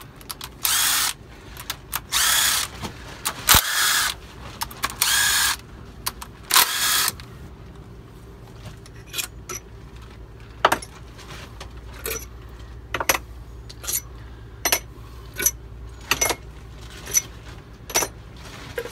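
Cordless impact wrench hammering in five short bursts over the first seven seconds as it loosens the rocker-arm rack bolts on a Volvo D13 diesel. After that comes a run of short, sharp clicks, about two a second.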